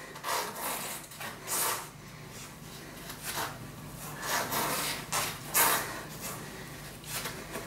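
Short hissy rustles and rubs, irregular and about one a second, from a person doing forearm-plank hip drops on an exercise mat.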